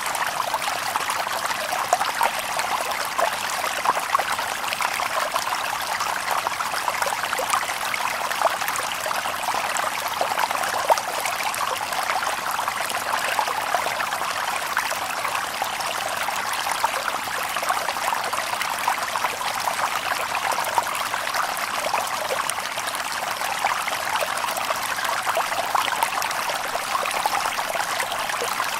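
Shallow stream babbling and trickling over stones: a steady, even rush of water with many small splashes and gurgles, without any deep roar.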